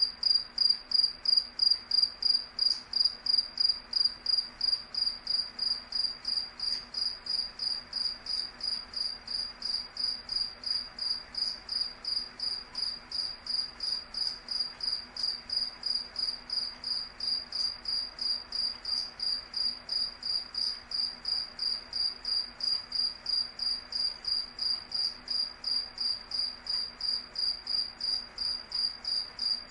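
A cricket chirping steadily: high-pitched chirps repeating evenly, about three a second.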